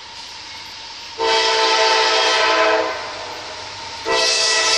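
CSX freight locomotive's multi-note air horn sounding for a grade crossing: one long blast about a second in, then a second blast starting near the end.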